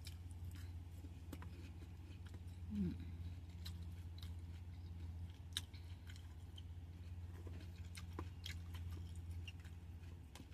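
A person chewing fruit with the mouth close to the microphone, scattered faint wet clicks and smacks over a steady low hum, with a brief soft "mm"-like sound about three seconds in.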